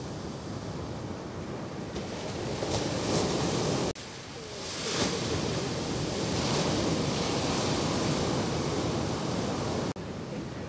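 Ocean surf breaking in the shorebreak and washing in, a steady rushing roar that swells as waves break and eases between them, with two sudden brief dropouts about four and ten seconds in where the recording is spliced.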